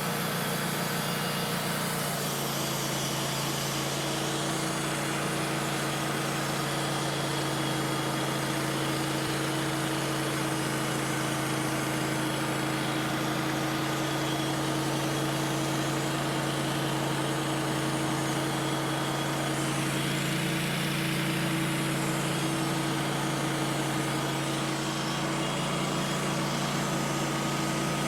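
Sawmill engine running steadily under load as the saw blade cuts a slab from a large maple log.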